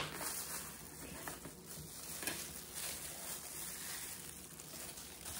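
Raw chicken wings being handled on a cutting board by hands in plastic food-prep gloves: a faint rustling and shuffling with a couple of light taps.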